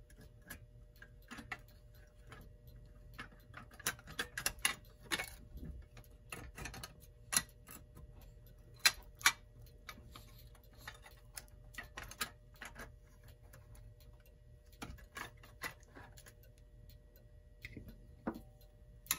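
Irregular small clicks and light metallic knocks as a 1947 Seth Thomas desk clock's movement is worked loose by hand from its metal faceplate, the tabs that held it bent up.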